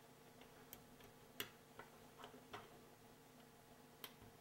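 Near silence with a few faint, sharp clicks of a small plastic wiring-harness connector being handled as a wire's pin terminal is pushed into its slot. The loudest click comes about a second and a half in, and another comes near the end.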